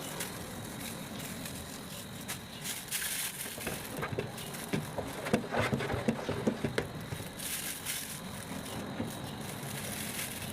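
Plastic nylon bags being handled, with rustling and crinkling and a cluster of sharper crackles and clicks about four to seven seconds in.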